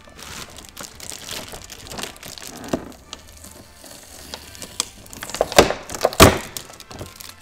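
Plastic figure-base parts and their packaging being handled: scattered clicks and rustles, then two sharp knocks about five and a half and six seconds in, the loudest sounds.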